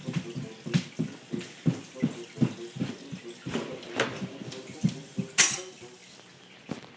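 Orchestral music playing through a TV speaker: a run of short, detached low notes at an uneven pace, with a sharp click about five seconds in.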